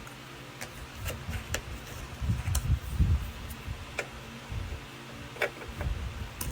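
Irregular clicks and low knocks from the parts of a sewing machine being handled and adjusted, over a steady low hum. The loudest knocks come about two to three seconds in.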